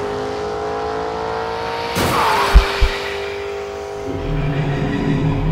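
Engine sound effect in the outro: a steady engine note that climbs slowly in pitch, then a sharp hit about two seconds in followed by two heavy thumps. The engine then holds a steady note, turning to a rougher low rumble near the end.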